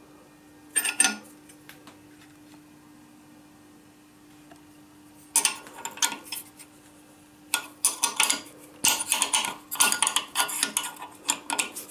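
Metallic clinks and rattles of a steel wrench against a steel indexing fixture as the end mill is turned and set for grinding. The clinks come in a short burst about a second in, then in busier clusters from about five seconds on, over a faint steady hum.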